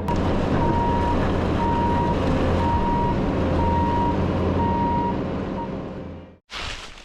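Bobcat T650 compact track loader running in reverse, its diesel engine droning under a backup alarm that beeps about once a second. The sound fades and cuts off near the end.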